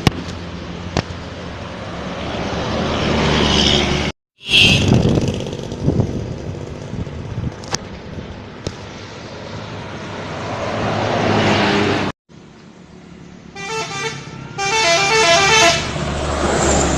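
Buses passing close by with engine and road noise swelling and fading. Near the end a bus's 'telolet' multi-tone musical air horn plays a short stepped tune twice.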